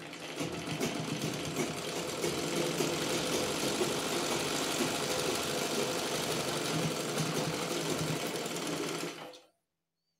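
Usha sewing machine running steadily, stitching down the folded cloth edge over the cord channel of a fabric face mask; the sound cuts off suddenly near the end.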